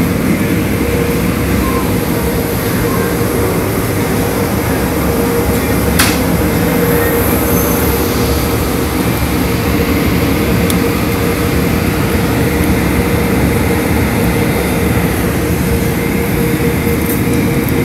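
Automatic tunnel car wash machinery running: a steady, loud wash of rumble and spray noise with a constant hum through it, and one sharp click about six seconds in.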